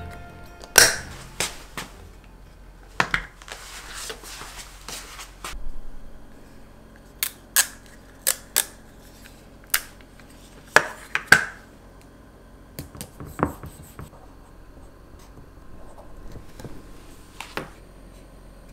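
Hands handling glass jars and a small label: a dozen or so sharp clicks and taps, loudest about a second in and again about eleven seconds in, with some rustling about three to five seconds in.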